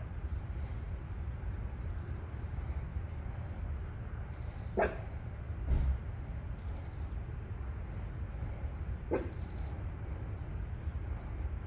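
A puppy gives two short, high yips, about five and nine seconds in, over a steady low rumble; a dull thump comes just before the six-second mark.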